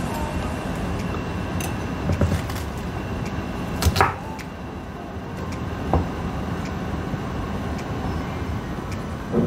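A chef's knife cutting spring onions on a wooden cutting board: a few separate knocks of the blade on the wood, the loudest about four seconds in, over a steady background hum.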